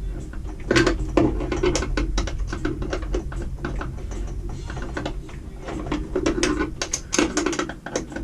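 Irregular clicks, knocks and clatter of hands and tools working on a lawnmower, over a steady low hum.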